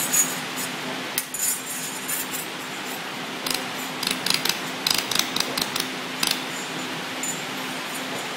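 Scattered short, sharp metallic clicks and clinks over a steady low hum.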